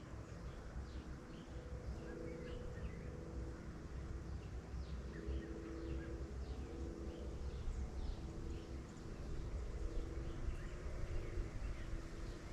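Rural outdoor ambience: many short, high bird chirps scattered throughout over a steady low rumble, with a faint droning hum that comes and goes.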